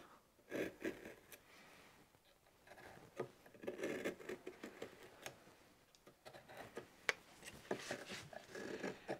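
Hand gouge paring a glued-in wooden patch on a carving: faint, irregular short scraping cuts with small sharp clicks.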